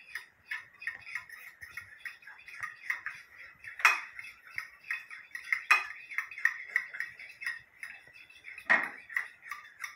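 Fork beating eggs in a ceramic plate: a quick, irregular run of metal-on-china clinks and scrapes, with a few louder knocks.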